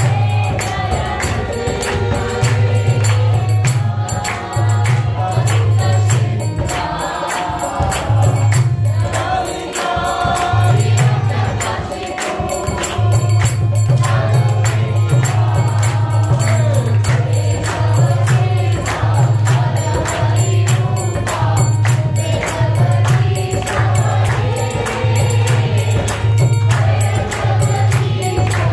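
Group devotional chanting (kirtan): adult and children's voices singing together over a mridanga drum, with clapping and a bright jingling percussion marking a steady beat. The drum's deep strokes pause briefly a few times.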